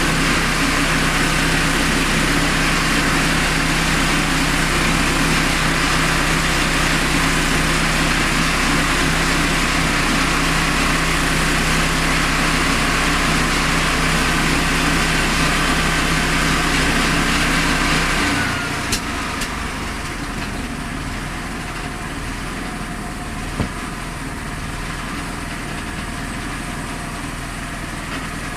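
Single-cylinder Honda GX390 petrol engine of a homemade band sawmill running at full speed, then throttled back to idle about two-thirds of the way through, a high whine falling away as it slows. Two short knocks sound later while it idles.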